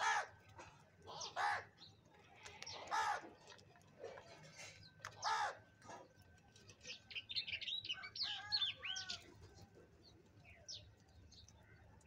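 House crows calling while feeding: four harsh caws spread over the first six seconds, then a quick flurry of shorter, higher calls around eight to nine seconds in, with a few faint calls after.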